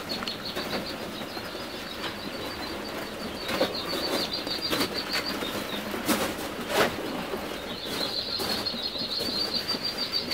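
Partridge chicks peeping in a rapid high chorus, with knocks and scuffs of cardboard chick boxes being tipped and set down. The peeping fades for a couple of seconds midway and comes back about eight seconds in.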